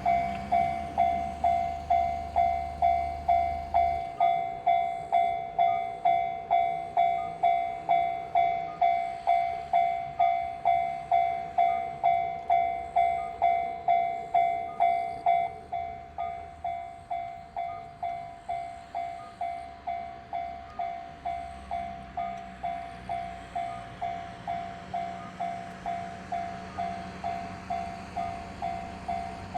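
Japanese railway level crossing's warning bell ringing, a steady pitched ding about twice a second, which turns noticeably quieter about halfway through. A low steady drone joins it in the last third.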